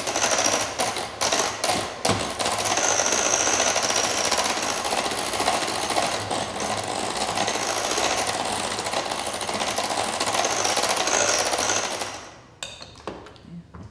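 Electric hand mixer running, its beaters whipping mashed potatoes in a glass bowl, with irregular clicking in the first two seconds. It switches off about twelve seconds in.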